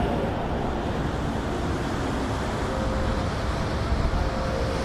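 Steady outdoor background noise, a low rumble with a hiss over it, of the kind made by road traffic and wind on the microphone.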